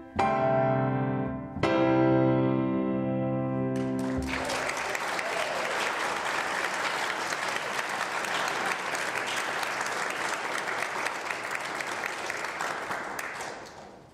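Grand piano playing the closing chords of a piece: two loud chords, the second held for about two and a half seconds. Then audience applause for about nine seconds, dying away near the end.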